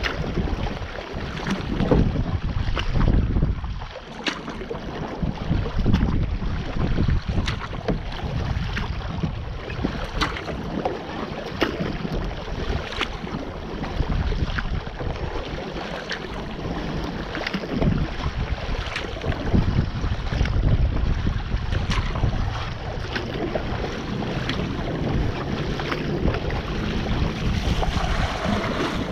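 Water splashing and lapping around a kayak as it is paddled, with many small sharp clicks and drips. Wind rumbles unevenly on the microphone.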